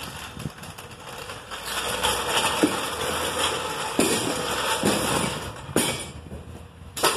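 Steel floor jack rolled across concrete, its wheels rattling, with several clanks of metal as it is moved and a sharp clank near the end.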